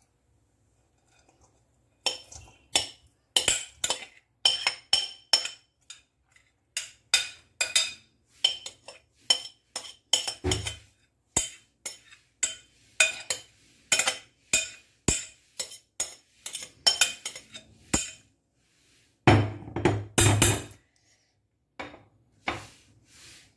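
A metal spoon and a glass bowl knocking and scraping against a stainless-steel mixing bowl: a quick run of sharp, ringing clinks, several a second, starting about two seconds in, as yogurt and chopped onion are scraped and tapped out into it. A longer, louder clatter comes a few seconds before the end.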